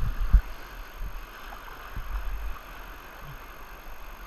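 Whitewater rushing around a kayak running a rapid, with the splash of paddle strokes. Low thumps and rumble on the camera's microphone come through it, the loudest about half a second in.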